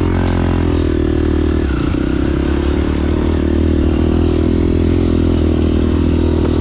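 Off-road vehicle engine running at a steady speed while on the move.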